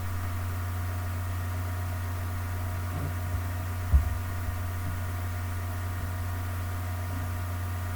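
Steady low electrical hum with a few faint steady tones above it, and one soft knock about four seconds in.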